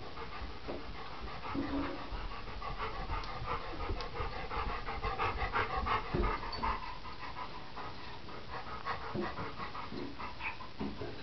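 Dog panting rapidly and rhythmically close to the microphone.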